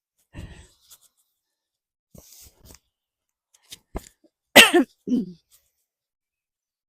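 A few faint knocks and clicks, then about four and a half seconds in a loud, short wordless vocal burst from a person, followed at once by a lower one.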